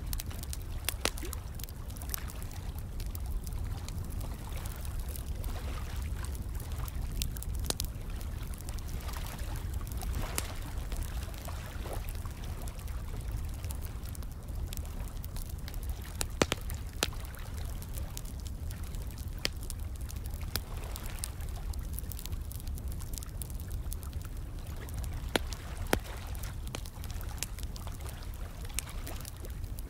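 Fire crackling, with irregular sharp pops scattered through it and a couple of louder ones, over a steady rush of running, pouring water.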